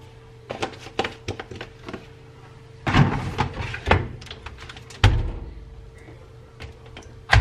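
Top-loading washing machine being loaded and shut: scattered clicks and knocks of the detergent bottle and its cap, a busy clatter about three seconds in, then a heavy thud as the lid is closed about five seconds in, and a sharp click near the end as a control-panel button is pressed.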